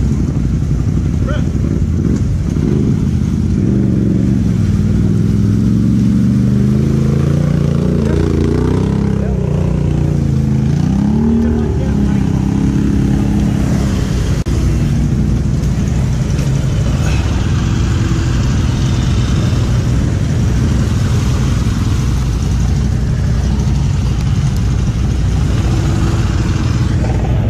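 ATV engines running in a creek crossing: an engine revs up and down several times in the first half, then settles to a steadier run, with splashing, rushing creek water beneath.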